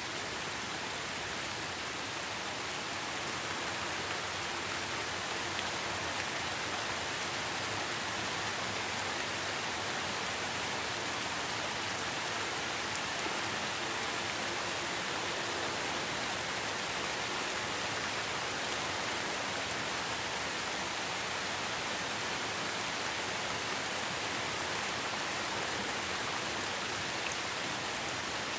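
Steady rain falling, an even hiss with a fine patter of drops that holds constant throughout.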